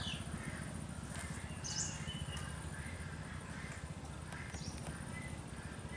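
A steady low engine-like hum with a fast throb, with a few short, high bird chirps over it about a second in, just before two seconds and about four and a half seconds in.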